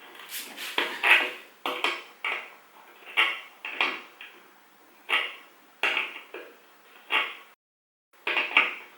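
A string of sharp knocks, clicks and clatters of hard objects being handled and set down, about a dozen at uneven intervals, each ringing briefly; the sound breaks off completely for half a second near the end.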